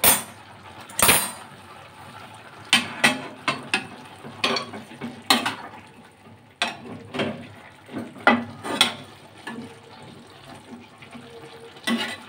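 Metal ladle scraping and clinking against a metal kadhai as chopped green onions are stirred, in irregular strokes.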